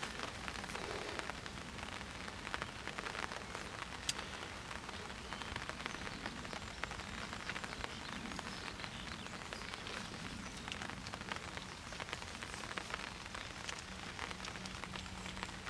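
Steady rain falling, with many small, quick drop ticks over an even hiss.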